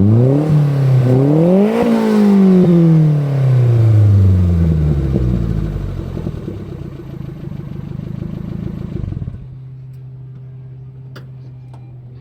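Nissan March Super Turbo's MA09ERT engine through a Fujitsubo Legalis R exhaust, blipped twice and revved up, then the revs fall slowly back over a few seconds. About nine seconds in the sound drops suddenly to a steady, quieter idle.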